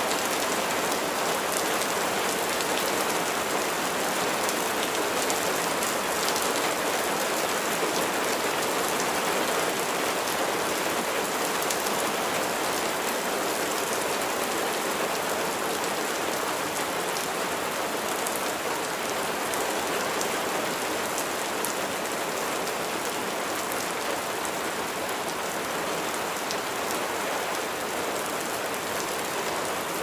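Steady rain falling, an even hiss with faint scattered ticks of individual drops.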